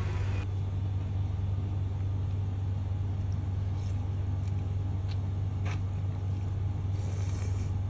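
A steady low rumble runs underneath a few faint clicks from a spoon and ceramic bowl while noodles are eaten, about halfway through.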